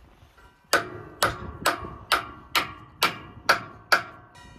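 Eight sharp metallic clicks at an even pace of about two a second, each ringing briefly: hand-tool work on the steel drive assembly of a wheel line irrigation mover while a new hydraulic motor is fitted.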